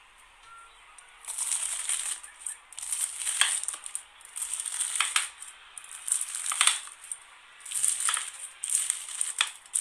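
A serrated knife slicing through a crunchy peach-shaped slime: about six gritty, crackling cutting strokes, starting about a second in.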